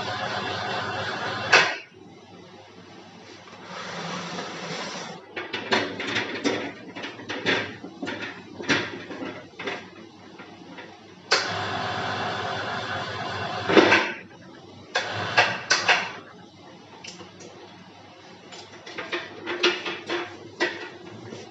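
Plastic injection moulding machine running steadily, then stopping with a sharp clack a couple of seconds in. Scattered metal clicks and knocks follow. The machine runs again for about three seconds and stops with loud clacks, followed by more clicking.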